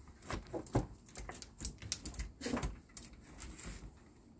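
Irregular light taps, clicks and rustling of hand work: a plastic squeegee being worked along adhesive film on a cabinet's drawer front.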